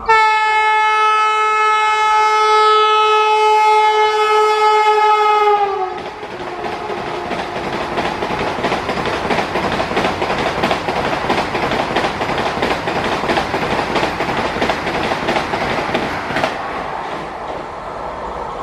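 Express train passing at speed: the locomotive's horn sounds one long, steady blast for about six seconds, its pitch dipping slightly as it goes by. Then the coaches rush past with a rapid clatter of wheels over the rail joints, easing near the end.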